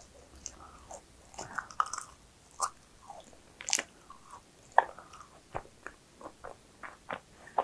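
Close-up eating sounds of a macaron: small crisp crunches and mouth clicks as it is bitten and chewed, settling into steady chewing of about three strokes a second a little past halfway.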